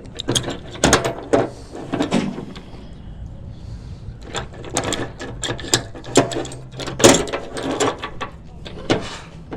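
Irregular metallic clicks and clanks of rope pulleys being handled and passed between people.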